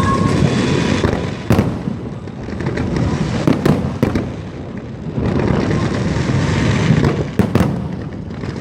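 Aerial fireworks going off: a continuous rumble and crackle, with sharp bangs about a second and a half in, three in quick succession around the middle, and another cluster near the end.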